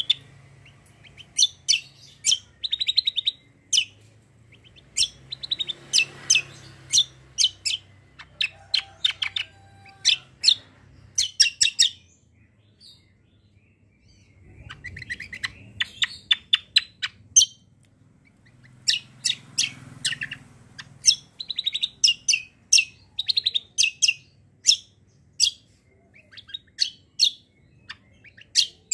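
A caged cucak kombok (kecial kombok) songbird calling in bouts of rapid, sharp, high chirps, with brief pauses between the bouts.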